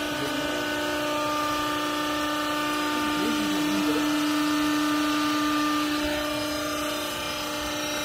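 Hydraulic power unit of a vertical clothing baler running: a steady mechanical hum with a whine, easing slightly about six seconds in.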